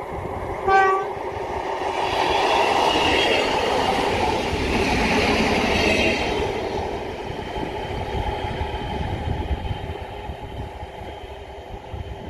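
A diesel multiple unit gives one short horn blast on approach, then passes close by with rising engine and wheel-on-rail noise and some clickety-clack, fading as it runs away.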